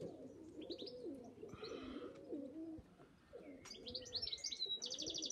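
Domestic pigeons cooing continuously in low, warbling calls, with small birds chirping higher over them and a rapid trill about five seconds in.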